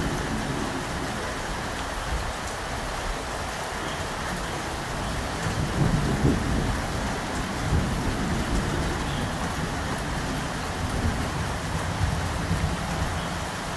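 Steady heavy rain falling, with a low thunder rumble swelling up about halfway through and fading back.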